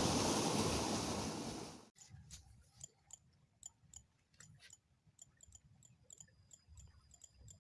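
A loud, steady rushing hiss cuts off abruptly about two seconds in. After that there are faint, sharp high clicks at irregular intervals, and from about six seconds a thin, steady high whine.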